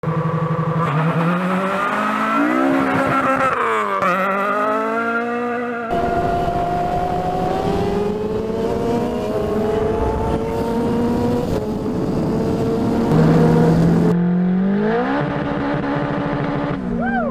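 A montage of engine sounds cut together. First a car's four-cylinder engine revs up, drops in pitch at a gear change and revs up again. About six seconds in it cuts abruptly to a sport motorcycle at speed, its engine pitch climbing slowly under heavy wind rush. Near fourteen seconds it cuts again to a car engine revving up, with no wind noise.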